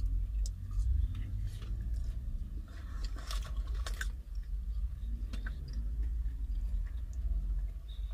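Close-up chewing and biting into crispy fried chicken wings, with scattered crunches that bunch together about three to four seconds in, over a steady low rumble.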